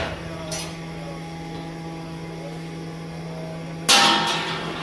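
A steady low hum, then about four seconds in the flat metal lid is slid onto the rim of a clay pit tandoor: a sudden loud metal scrape and clank that fades over about a second.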